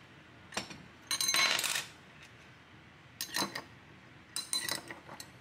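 Ice cubes and a long stirring spoon clinking against a glass goblet as an iced drink is stirred. The clinks come in four bouts, the longest and loudest rattle about a second in.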